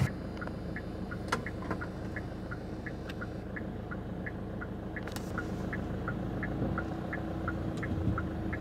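A car's turn-signal indicator ticking in an even tick-tock, about three ticks a second, over the steady low rumble of the car inside the cabin.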